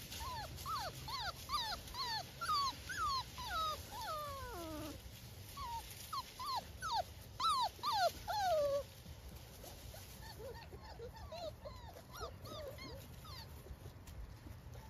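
Hovawart puppies whining and whimpering in a quick string of short, high calls that fall in pitch, several overlapping at times, growing sparser and fainter after about nine seconds.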